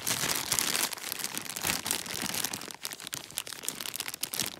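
Thin black plastic blind bag crinkling and crackling as hands crumple and work it open to reach the mini vinyl figure inside, a steady run of fine crackles.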